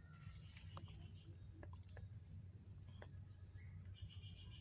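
Faint forest ambience: a steady, high-pitched insect drone, with a few faint ticks.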